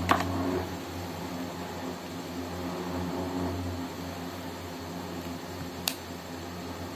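Steady mechanical hum, with a short click just after the start and a sharp metallic click about six seconds in as long-nose pliers work at the sealing washer on a motorbike spark plug.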